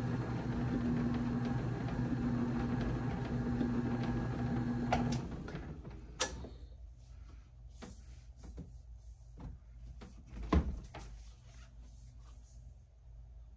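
Bowling ball spinner motor running with a steady hum while the ball turns against a sanding pad. About five seconds in it is switched off and winds down. After that come scattered clicks of handling and one sharp knock about ten seconds in.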